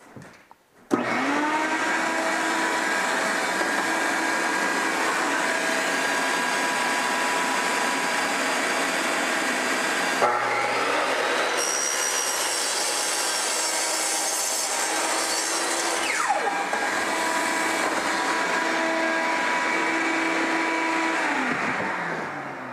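Ryobi miter saw running with a steady high whine while cutting a laminate floor plank. It spins up about a second in and winds down near the end.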